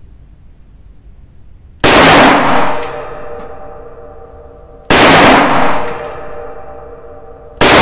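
Three single shots from an HS Produkt VHS-2 bullpup rifle in .223 Remington, about three seconds apart. Each shot is very loud and rings on for about a second in the enclosed shooting bay.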